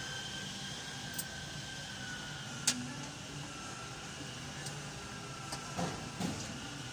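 Steady hum with a faint high whine that dips slightly in pitch, and a few light clicks, the sharpest about two and a half seconds in.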